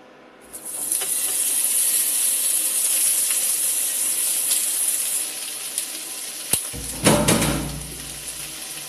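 Boiled pork belly pieces sizzling as they land in a hot, dry nonstick pot, browning without oil; the sizzle starts about half a second in and eases off after about five seconds. A sharp click and a louder clatter come about seven seconds in.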